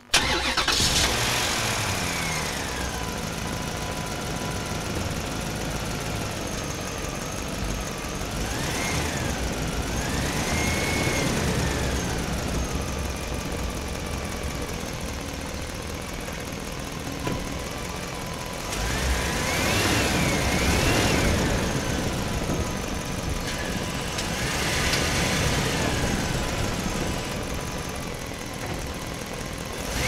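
A truck driving through a parking structure, its engine running with a steady low rumble. High whines rise and fall several times over it. The sound begins abruptly and swells louder about two-thirds of the way through.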